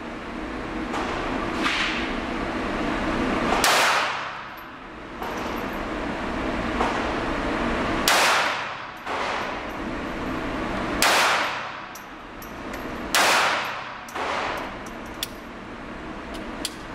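Diamondback DB380 .380 pocket pistol fired slowly, one shot every few seconds, with four loud shots. Each shot echoes in the indoor range.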